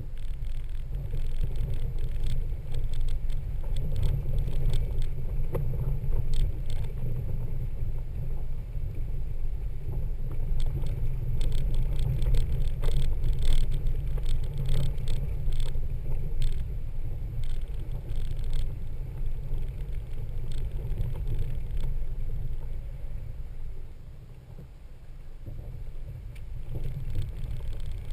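Toyota Land Cruiser 80 series driving on a dirt trail: a steady low rumble of engine and tyres with scattered rattles and ticks, briefly quieter near the end.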